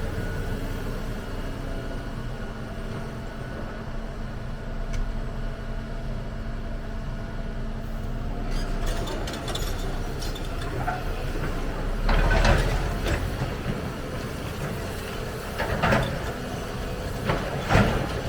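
Volvo EC300 excavator's diesel engine running steadily while it works, with loud metallic clanks and scraping about twelve seconds in, then twice more near the end.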